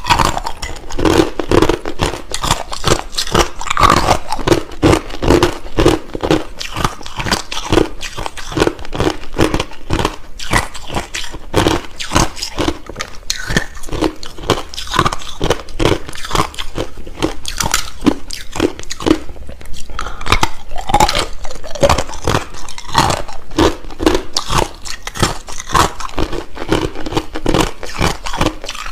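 Close-up crunching and chewing of hard clear crushed ice in the mouth: fast, irregular crunches one after another.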